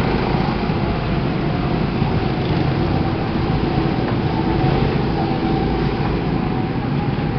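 Go-kart engine running steadily, a continuous low drone with no let-up.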